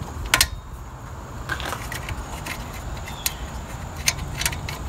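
Scattered light clicks and taps of metal parts as wing nuts are unscrewed from a Dyna-Glo RMC-95 kerosene heater's burner housing, with a sharper click about a third of a second in and a cluster of small ticks near the end.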